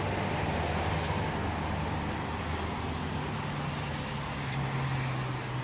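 A steady low motor hum over a constant noise bed.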